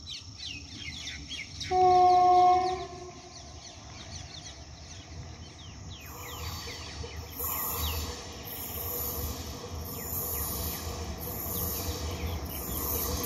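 Horn of an approaching WAP4 electric locomotive sounding one steady chord for about a second, about two seconds in. After that comes the low rumble of the train, growing gradually as it nears. Birds chirp throughout.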